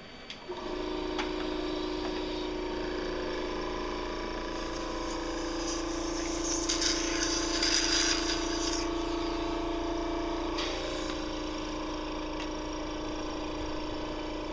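Cough assist machine (mechanical insufflator-exsufflator) starting about half a second in and running with a steady motor hum. A louder rush of air joins in for a few seconds in the middle.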